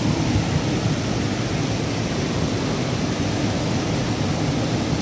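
Floodwater of a swollen river rushing steadily through the trees, a constant even roar of fast-moving water.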